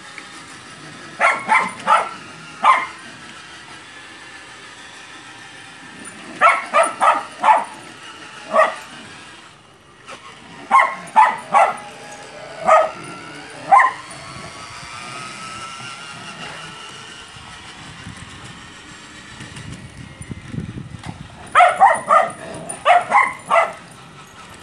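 A dog barking in four bursts of several sharp barks each, a few seconds apart, over a faint steady background hum.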